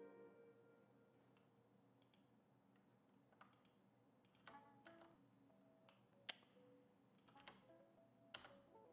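Near silence: faint background music with scattered computer mouse clicks and keystrokes, the sharpest about six seconds in.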